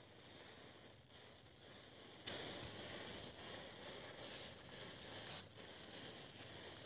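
Near silence, then from about two seconds in a faint, uneven fizz and crackle as the matchsticks in a standing chain flare one after another.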